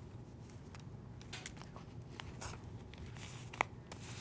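Faint rustling and light handling noises of a ball of yarn being searched for its loose end, with a few soft scratchy touches and one sharper tick near the end, over a low steady room hum.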